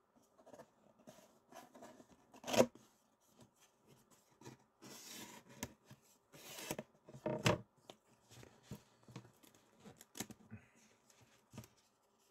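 Close handling noises at a desk: paper or a plastic wrapper rustling and tearing, with scattered clicks and knocks. The loudest knocks come about two and a half seconds in and again about seven and a half seconds in.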